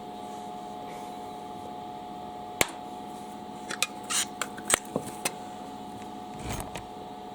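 Scattered sharp clicks and knocks of metal parts and clips being handled on a workbench, with a faint steady electrical hum throughout. The starter motor is not yet running.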